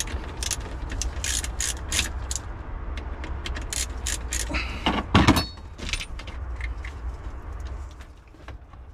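Hand tools and plastic parts handled at a car battery's terminals and wiring: a quick irregular run of sharp clicks and rattles from the ratchet and the plastic connector being unplugged, then one louder knock a little past five seconds in, and a few more light clicks, over a steady low rumble.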